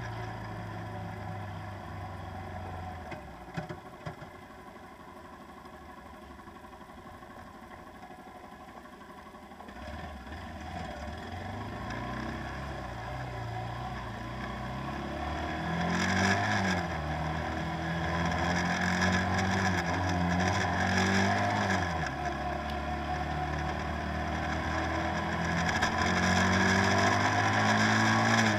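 Boat engine running with a low hum. It drops back for a few seconds near the start, then grows steadily louder with its pitch shifting. A rush of water and wind comes in about halfway through.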